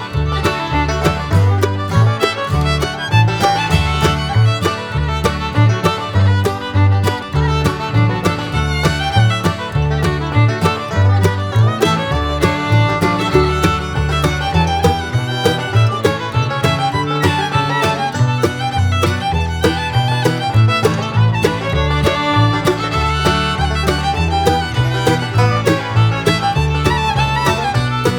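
Upbeat bluegrass-style background music with fiddle and guitar over a steady beat.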